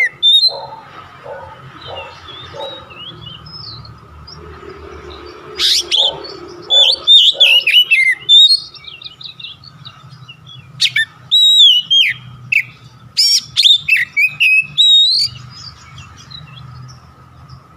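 Oriental magpie-robin singing in loud, varied whistled phrases with quick slides and harsh notes. The song comes in bouts about six seconds in and again from about eleven to fifteen seconds, with only soft notes between, over a steady low hum.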